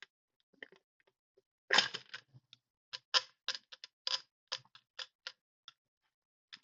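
Sharp clicks and light metal taps, a dozen or so at an uneven pace of about two a second, starting about two seconds in, from hand tools working on the fittings of a turbocharger.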